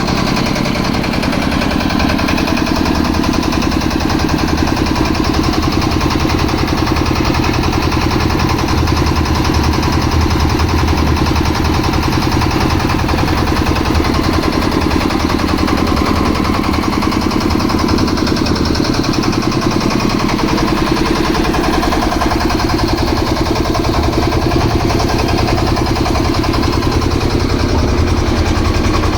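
Concrete mixer's engine running steadily at a constant speed, with a fast, even beat.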